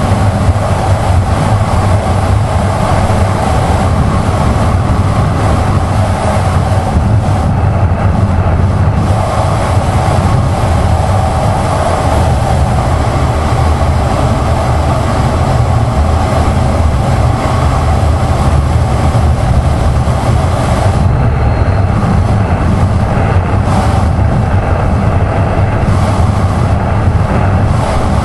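Steady wind rush and road noise on a camera mounted on a moving Kawasaki Ninja 1000SX, with the bike's inline-four engine running steadily under it.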